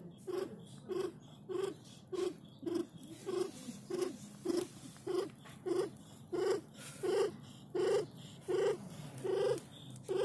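Mother cat purring in a steady rhythm, a pulse with each breath at about one and a half a second, while she is giving birth to her litter.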